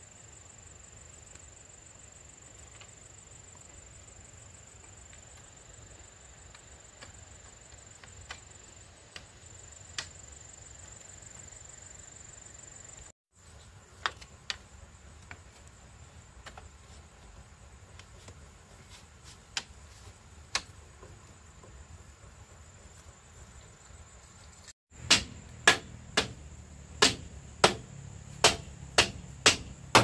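Crickets trilling steadily, with scattered sharp knocks. About five seconds before the end comes a run of loud, evenly spaced strikes, about two a second, typical of hammering on the build.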